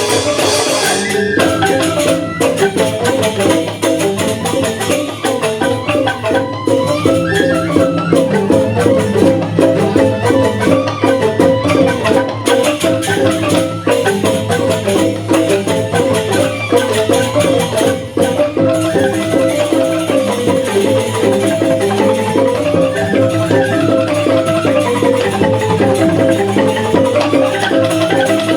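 Gamelan joged bumbung: Balinese bamboo xylophones (grantang) playing a dense, fast stream of notes with light percussion.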